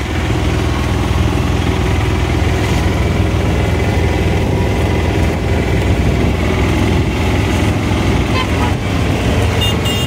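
Steady low rumble of a running motor vehicle, with a few short high-pitched tones near the end.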